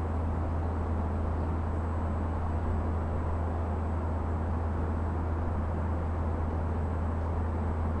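Steady road-traffic rumble from the bridge, a continuous low drone and hiss with no single vehicle standing out.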